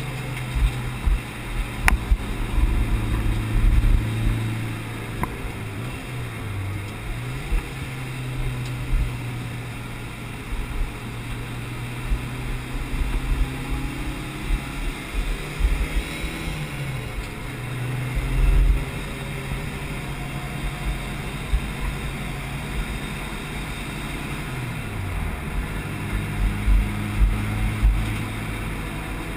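Cabin sound of a stock Mitsubishi Lancer Evolution VI Tommi Mäkinen's turbocharged four-cylinder engine at speed on a circuit. The engine note holds steady, then drops in pitch three times as the car slows for corners, climbing again after each, with low road and wind rumble on the microphone.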